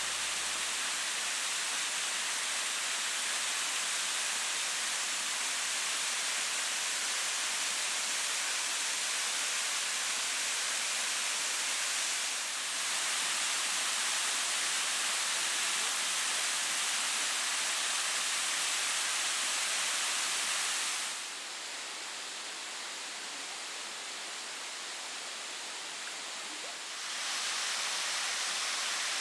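Waterfall pouring, a steady hiss of falling water. It drops quieter and duller for a few seconds about two-thirds of the way through.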